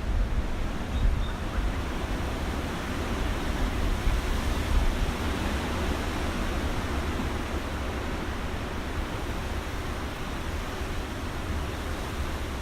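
Gusty wind: a steady rushing noise with a deep rumble, surging several times in the first few seconds and then evening out.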